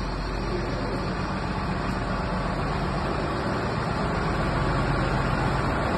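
Steady machine noise, a low hum under a broad rushing sound, slowly getting louder.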